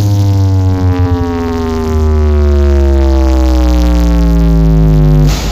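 Large street sound system playing loud electronic music: deep, heavy bass under a synth tone that glides slowly downward for about five seconds, then cuts off suddenly near the end.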